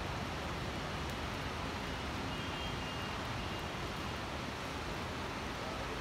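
Steady heavy rain falling over a city, with a low rumble of distant traffic underneath and a faint high whistle near the middle.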